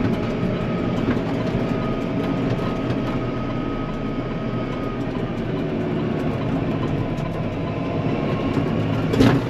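Tractor engine running steadily with a rattling clatter as it drives, and a thin steady whine over it for a few seconds in the first half.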